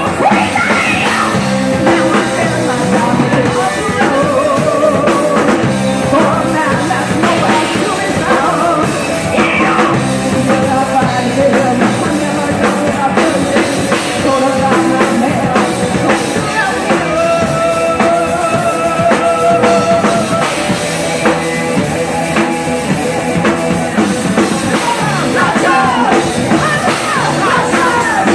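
Live rock band playing at full volume: two electric guitars, bass guitar and drum kit behind a woman singing lead, with some long held notes past the middle.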